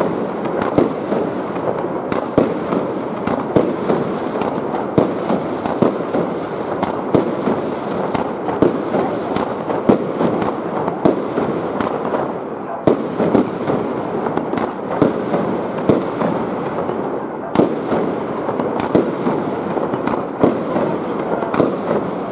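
Aerial fireworks shells bursting in a rapid display, with sharp bangs coming irregularly about one to two a second over a continuous din.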